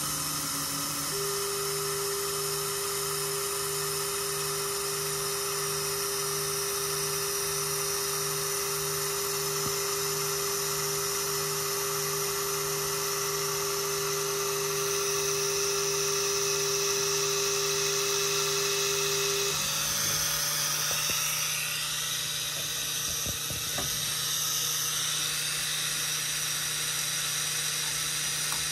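Diode laser cutter at work: a steady whine from its motors over a constant hiss and a low pulsing hum. The whine stops about two-thirds of the way through, and a few faint clicks follow near the end.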